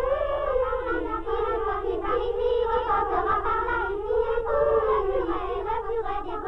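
A group of high voices calling together in long, wavering pitches, on a thin, narrow-band old film soundtrack.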